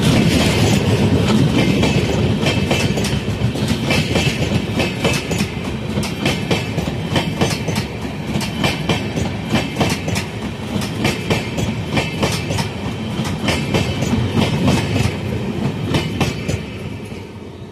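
Passenger train of LHB coaches rolling past close by, its wheels clacking over rail joints in a quick, uneven patter over a steady rumble; the train is slowing for a halt. The sound fades away near the end as the last coach passes.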